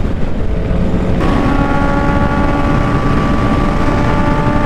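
Honda CBR650R inline-four engine running at high, steady revs at expressway speed, under heavy wind rush. About a second in the engine note comes up strongly and then holds one steady pitch.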